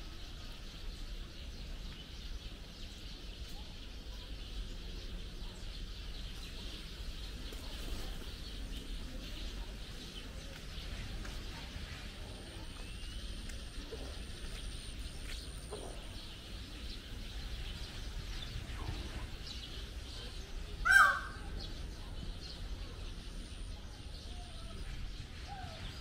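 Bird park ambience: a steady background hiss with faint scattered bird calls, and one loud, short bird call with a falling pitch near the end.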